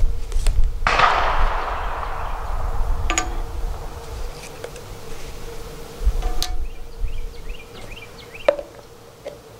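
Outdoor ambience with a steady insect buzz. About a second in there is a sudden loud burst that fades away over a couple of seconds. A few light clicks follow as small metal muzzle-device parts are set down on a concrete bench.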